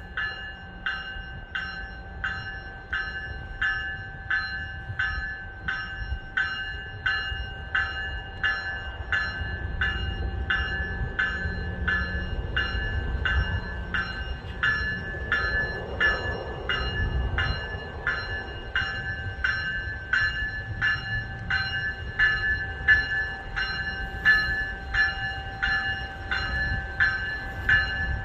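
A railway warning bell ringing steadily, about three strikes every two seconds, while a GO train rumbles past, the rumble loudest around the middle.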